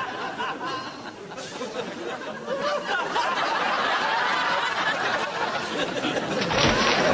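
Several people laughing and chattering, with a short noisy burst near the end.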